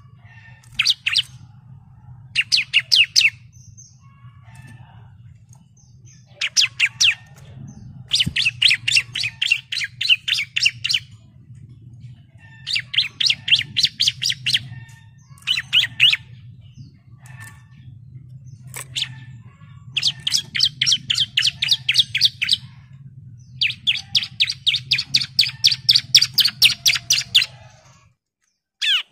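Bar-winged prinia (ciblek) singing in bouts of rapid, evenly repeated sharp notes, each bout lasting one to four seconds with short pauses between. A faint low steady hum runs underneath and stops near the end.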